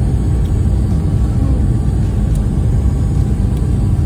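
Steady low rumble of airliner cabin noise, the jet engines and rushing air heard from inside the cabin on final approach.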